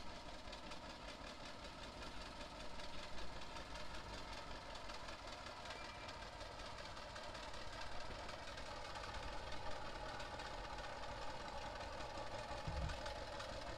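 Antique John Deere two-cylinder tractor engine running steadily as the tractor is driven slowly down off a flatbed trailer's ramps.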